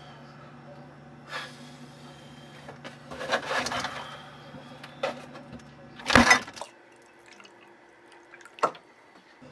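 Kitchen handling sounds: a plastic milk jug lifted out of a refrigerator and handled over a low steady hum, with a loud knock about six seconds in as the hum stops. Then milk pours quietly into a mug, and a click comes near the end.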